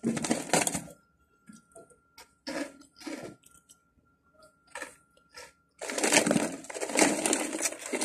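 Crunching bites of Oishi spicy prawn crackers, with a loud crunch at the start and scattered smaller crunches after it. About six seconds in comes a long, loud crinkling of the foil snack bag as a hand reaches into it.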